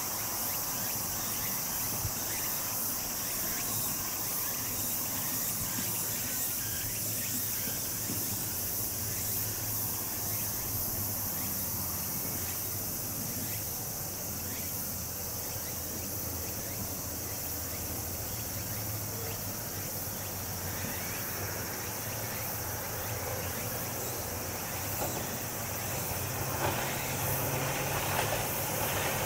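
Tsukutsukuboshi cicadas (Meimuna opalifera) singing in a steady high-pitched chorus. Near the end the low rumble of an approaching electric train rises beneath it.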